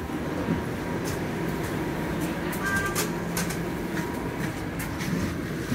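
Interior of a moving TTC Flexity Outlook low-floor streetcar: a steady running rumble with a low motor hum and scattered light clicks and rattles. A brief beep sounds about halfway through.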